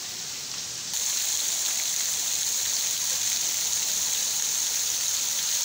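Pond water splashing and churning steadily under a dense crowd of feeding koi jostling at the surface, a rain-like hiss. It gets suddenly louder about a second in.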